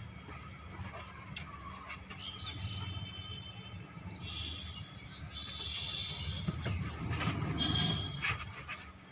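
A stainless-steel tubular folding bed frame being lifted and unfolded: metal scraping and squeaking, with a few light clicks. The scraping is loudest near the end.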